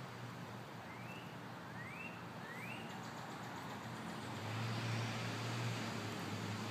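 Steady distant road-traffic rumble that swells louder a little past halfway, with three short rising bird chirps in the first three seconds.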